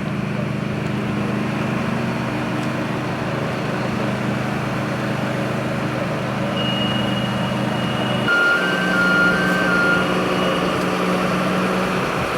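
Heavy diesel truck engine, most likely a fire engine's, running steadily; its note shifts about two-thirds of the way in. Alongside it a high steady tone sounds for a few seconds, with a short run of alternating beeps in the middle of it.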